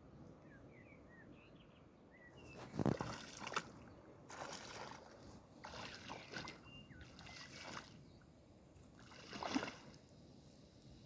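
A series of swishing, rustling noises in bursts, the loudest about three seconds in and another near the end, with a few faint high chirps in the first couple of seconds.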